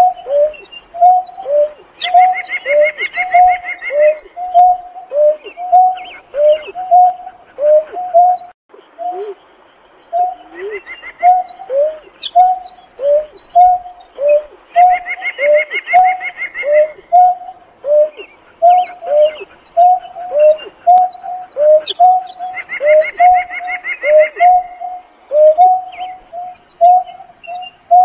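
Greater painted-snipe giving its hooting call: a steady series of short, low hoots, about one and a half a second, each dropping in pitch. Four times, a higher, rapid trill joins in.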